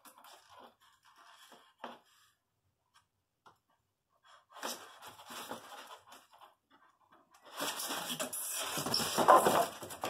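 Styrofoam packing being handled against a cardboard box: scraping and rustling. It starts with a few small clicks, comes in briefly about halfway through, and grows loudest over the last two seconds.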